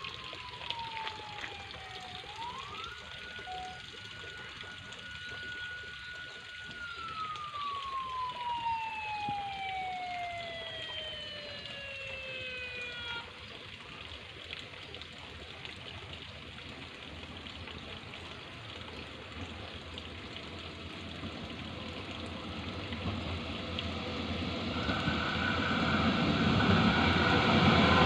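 A special train's siren sounds as a single whistle-like tone. It dips, jumps up and holds for a few seconds, then slides slowly down and stops about 13 seconds in. Afterwards the noise of the approaching train grows steadily louder, with a steady high tone joining near the end.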